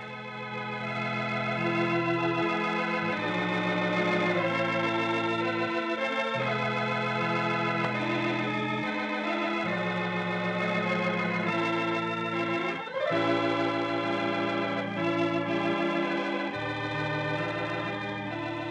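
Organ music playing slow, held chords that change every second or two: the programme's closing theme.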